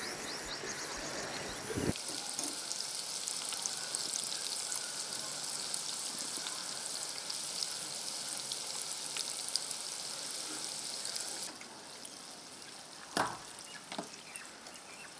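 Batter-coated chicken pieces deep-frying in hot oil, a dense steady sizzle that drops to a softer hiss near the end. A single sharp knock comes just before the end.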